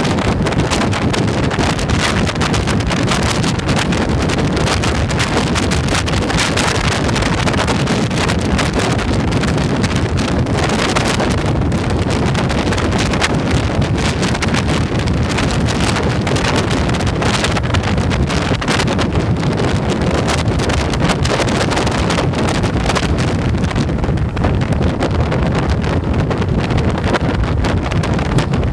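Heavy wind buffeting on the microphone of a camera mounted on a moving motorcycle at road speed, with the bike's engine and road noise blended underneath.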